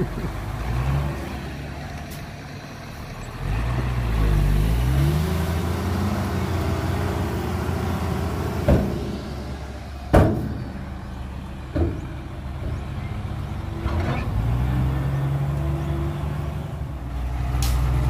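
Heavy diesel engine of earthmoving equipment running and revving up twice. Three sharp metallic knocks come partway through.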